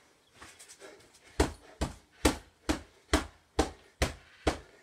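Boxing-gloved fists pounding a heavy punch bag lying on the floor with heavy downward blows. Eight thuds at about two a second, starting about a second and a half in.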